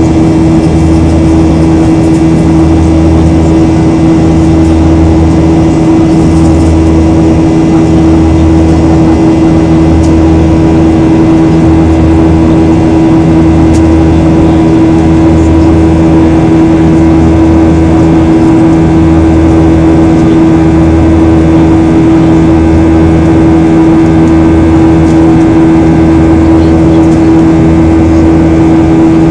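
Boeing 737-800's CFM56-7B turbofan engines heard loudly from inside the cabin during the climb after take-off: a steady mid-pitched engine tone over a constant rush. A low hum beneath it swells and fades about every second and a half.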